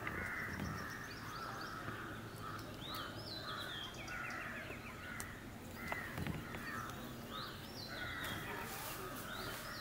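Crows cawing repeatedly, with another bird's short high call coming back every second or two.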